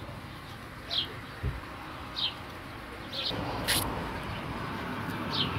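A small bird chirping repeatedly: short, high chirps that fall in pitch, about one a second. There is a sharp click about two-thirds of the way through and a brief low thump near the start.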